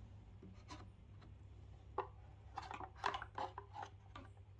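Flathead screwdriver prying at a subwoofer cabinet's cover: scattered light clicks and taps, clustering in the second half.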